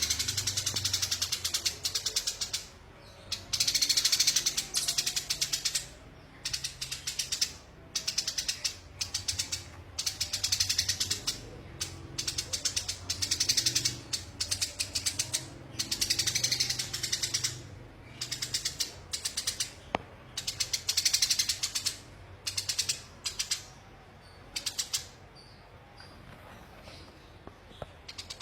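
Eurasian tree sparrow chattering in bouts of very rapid chirps, each bout a second or two long and separated by short pauses.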